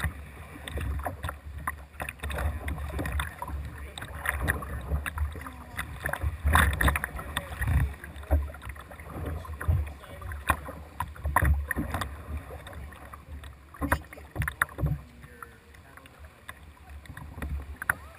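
Jackson Dynamic Duo whitewater kayak being paddled: the paddle blades splash in and out of the water about once a second, with water running off them, over a steady low rumble of water against the hull.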